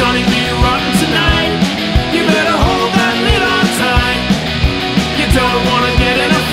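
Punk rock song played by a full band, with a steady beat of about three hits a second.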